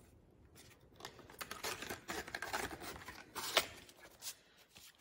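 Paper and card rustling and scraping, with light knocks, as notebooks and packaging are handled. The noise is dense and irregular, loudest about three and a half seconds in, and dies away near the end.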